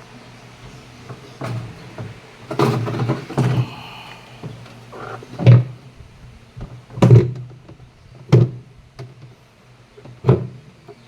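A series of heavy thunks and knocks from a Whirlpool top-load automatic washing machine, six or so loud ones spaced a second or two apart with a quick cluster near the start, each ringing briefly.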